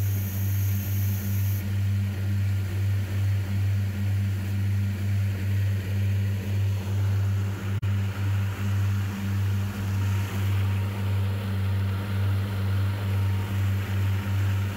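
Outboard motor of an inflatable boat running steadily under way: a low drone that pulses about twice a second.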